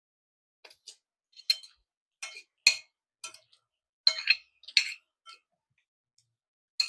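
Cutlery clinking against a dish: about a dozen light, ringing taps and clinks at irregular intervals, as food is scooped up.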